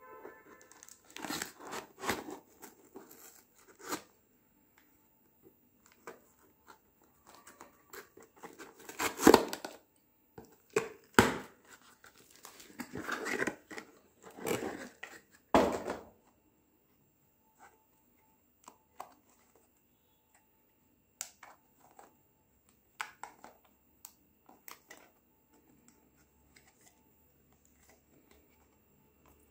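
Packing tape and a cardboard box being slit with a knife and torn open: irregular bursts of tearing, scraping and crinkling, loudest about halfway through. Later, only faint rustles and small clicks as a small plastic packet is handled.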